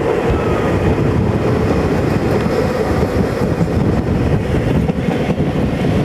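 Passenger train running at speed, heard from an open vestibule: a steady, loud rumble of steel wheels on the rails.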